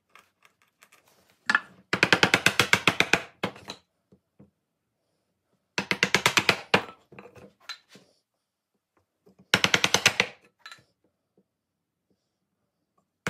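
Hand brace and bit boring into a wooden board, heard as three runs of rapid, evenly spaced clicking, each about a second long.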